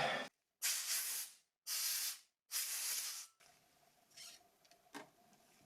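Three short blasts of air hissing from an air duster, blowing dust off a phone part. A light click follows near the end.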